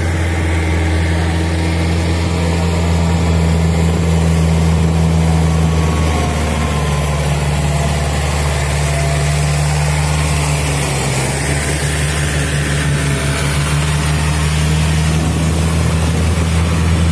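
Four-wheel farm tractor's diesel engine running steadily as it tills a flooded rice paddy with a rear rotary tiller: a loud, deep, even drone.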